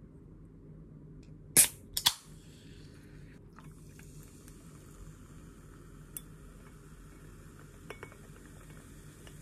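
A can of cola popped open with a sharp crack and a second snap about a second and a half in. After that comes the faint fizz of cola poured over ice in a glass cup, with a few small clicks.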